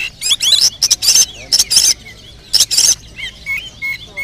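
Oriental magpie-robin (kacer) singing a fast, varied song of sharp whistles and harsh notes, then softer short whistles near the end.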